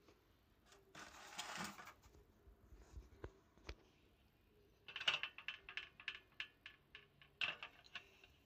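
Sharp metallic ticks and clicks from a stainless steel cup and Esbit pocket stove heating over a burning solid-fuel tablet, coming in quick runs of several a second past the middle and again near the end, with a short hiss about a second in.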